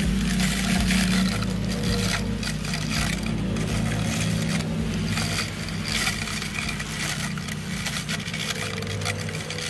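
Small 6-volt DC motor spinning a razor-blade cutter at speed, running with a steady hum while the blade scrapes through grass stems, which are being cut.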